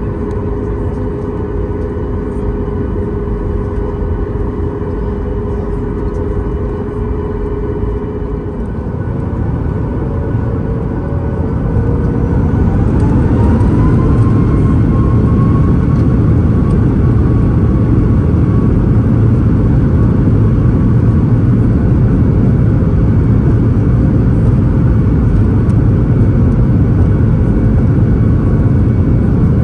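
Boeing 737 MAX 8's CFM LEAP-1B jet engines heard from inside the cabin, running steadily at idle. About twelve seconds in they spool up with a rising whine and settle into a louder, steady noise: the thrust being set for the takeoff roll.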